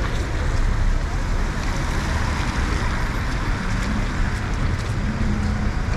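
Steady city street traffic noise in the rain: a constant hiss over a low rumble.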